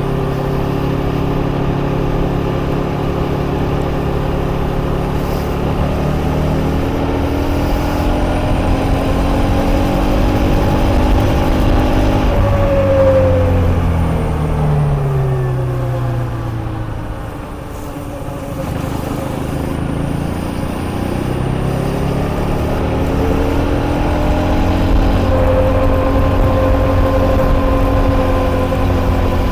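KTM Duke 250's single-cylinder four-stroke engine under way. The revs climb, fall away about halfway through, then climb again and hold steady near the end.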